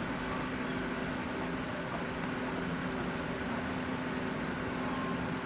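Steady mechanical hum over an even background noise, unbroken.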